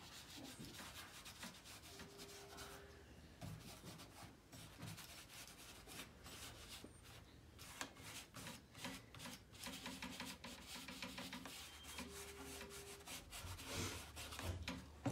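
Fingers rubbing soft pastel into paper, a faint dry scuffing in many short repeated strokes as the colour is blended.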